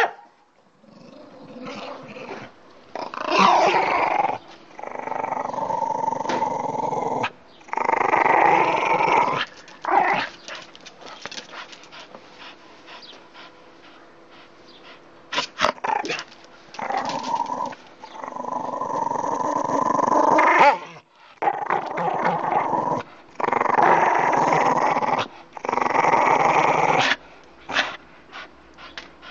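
Dog growling in play over a teddy bear toy, in repeated rough bouts of one to three seconds with short breaks between them and a lull of several seconds midway.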